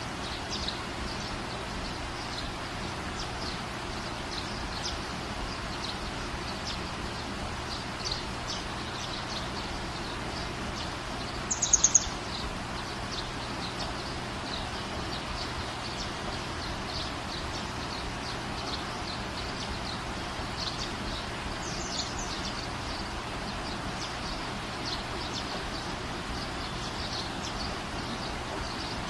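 Night-time nature chorus: many short high chirps scattered over a steady hiss and low hum, with one loud, fast trill of a few notes about twelve seconds in.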